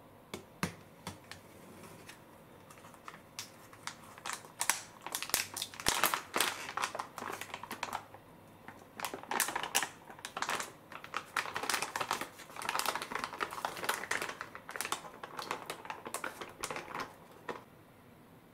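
Plastic microwave steam-cooking pouch crinkling and crackling as it is handled and opened, in dense runs of sharp crackles with a short lull about eight seconds in.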